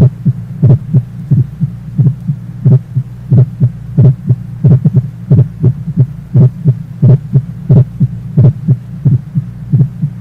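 Heart sounds as heard through a stethoscope at the mitral area: a steady heartbeat, each beat a pair of short thuds, over a continuous low hum. It is presented as a normal split first heart sound.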